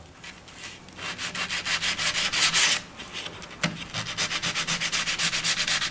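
Sandpaper rubbed by hand over the walnut frame's joints in quick back-and-forth strokes, sanding off dried glue squeeze-out. Two bouts of strokes, with a short pause about three seconds in.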